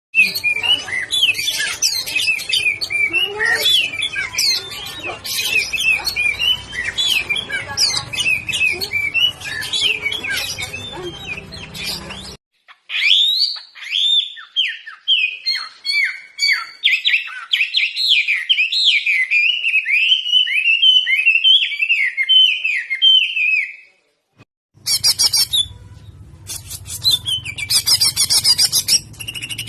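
Songbirds singing in three spliced clips. The first, to about twelve seconds in, is dense chirping and song over a low hum. After a sudden cut comes a long run of quick, repeated, downward-sweeping whistles. After a brief gap, the last clip is rapid high trills over a hum.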